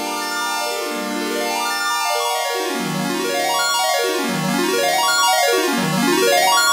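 Background instrumental music: held chords, then from about two and a half seconds in, tones that sweep down and back up about every second and a half, growing gradually louder.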